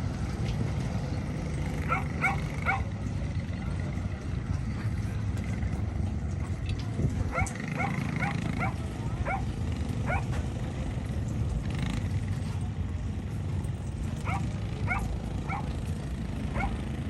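A dog barking in short runs of a few barks: three, then about six, then four, over a steady low rumble.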